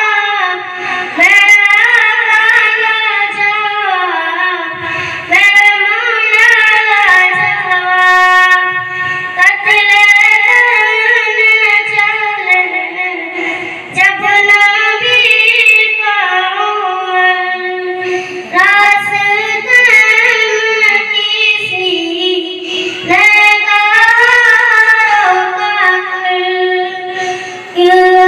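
A young girl singing a naat, an Islamic devotional song, solo in long, held melodic phrases with short breaks for breath.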